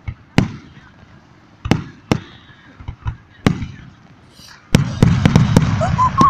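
Aerial fireworks shells bursting in the sky: single sharp bangs every second or so, then from about five seconds in a dense, rapid run of bangs.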